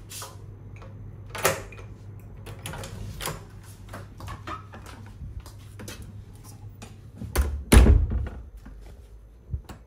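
Scattered clicks and knocks from someone moving about a small room, over a steady low hum, with a heavier thump and low rumble about eight seconds in.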